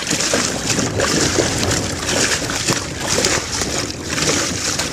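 Water sloshing and splashing in and around a swamped paddle boat on a choppy lake, in washes about once a second; the boat is taking on water.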